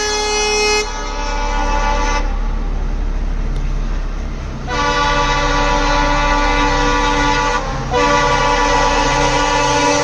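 Multi-tone air horn of a WDG4 diesel-electric freight locomotive sounding in repeated long blasts. A blast of about two seconds cuts off, and after a gap of about two and a half seconds the horn sounds again. It breaks briefly near the eight-second mark, then sounds on, all over the steady low rumble of the train.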